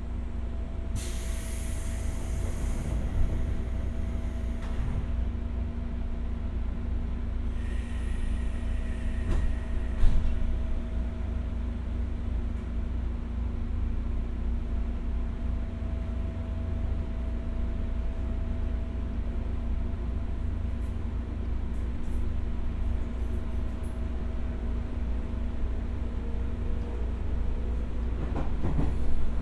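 The running sound inside a JR 201-series electric train: a steady low rumble of wheels on rail with a faint constant hum. A short hiss comes about a second in, and there is a single knock about ten seconds in.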